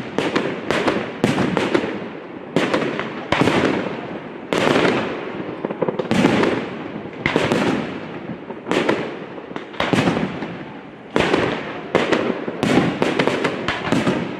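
Fireworks bursting in a string of sharp bangs, roughly one or two a second, each trailing off in echo, with a rapid cluster of cracks near the end.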